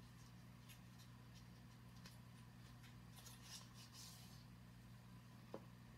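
Near silence over a low steady hum, with faint small clicks and a soft rustle about three to four seconds in as a small cosmetic item or its packaging is handled, and one sharper click near the end.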